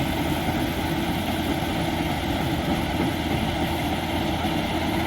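Engine of a rice harvesting machine running steadily, a continuous even drone with no change in pitch.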